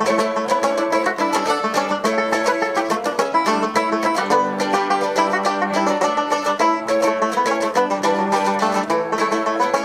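Live acoustic music: plucked string instruments picking a quick, steady run of notes in an instrumental passage, with no singing.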